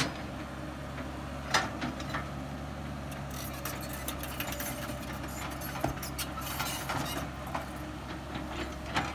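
Caterpillar E110B excavator's diesel engine running steadily as the bucket digs into soil at a paddy edge, with scattered sharp knocks and crackling from the bucket working the earth; the loudest knock comes about one and a half seconds in.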